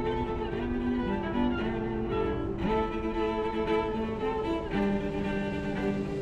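Instrumental background music led by bowed strings, held notes moving through a slow melody.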